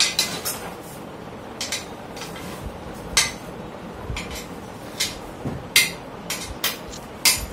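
Spanner clinking against the bolts and metal frame of a sewing-machine stand as the bolts are tightened: sharp metallic clicks at irregular intervals, some in quick pairs.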